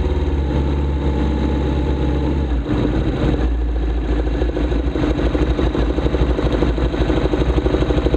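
Sport motorcycle engine heard from the bike itself, idling with an even beat. About three seconds in it picks up as the bike pulls away in first gear, then runs at low revs while the bike rolls slowly and comes almost to a stop.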